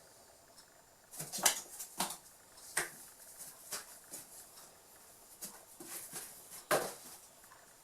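Kittens' paws scrabbling and knocking on a cardboard box: a string of short scratches and bumps, the loudest about a second and a half in and again near the end.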